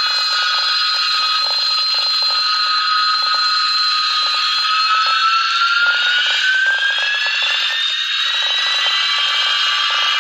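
Aircraft engines whining steadily over a rushing hiss, their pitch gliding up about halfway through and then holding, as power comes up for takeoff.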